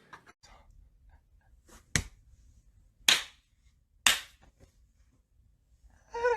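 Three sharp smacks, about a second apart, against near quiet.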